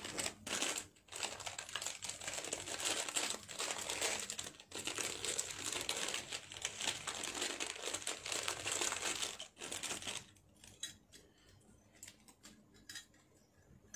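Packaging crinkling and rustling as it is handled and unwrapped, for about ten seconds; then quieter, with a few light clicks.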